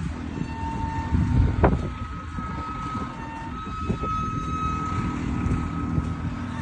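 Construction-site noise: a steady low machinery rumble with a thin whine and a few sharp knocks, one loud knock about a second and a half in.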